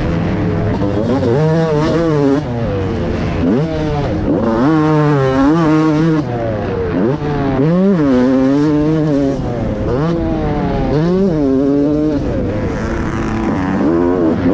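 Fantic XX250 motocross bike engine heard onboard, revving hard and easing off over and over as the throttle opens and closes, its pitch rising and falling many times with quick sharp climbs. Wind and dirt noise run underneath.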